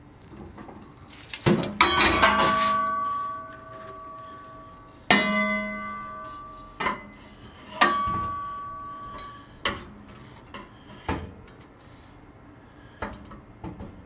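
Hard metal objects clanking together about eight times, a few of the strikes leaving a bell-like metallic ringing that fades over a second or two.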